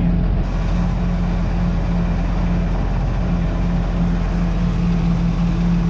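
Tractor diesel engine running steadily, with a constant low drone as the tractor inches forward.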